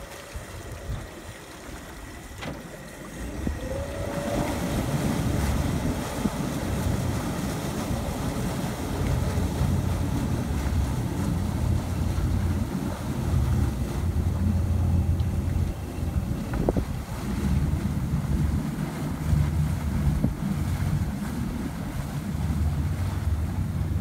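Twin Mercury outboard engines running at low speed under joystick control, churning the water with their propellers as the boat is walked sideways. There is a steady low drone that grows louder about four seconds in, and wind buffets the microphone.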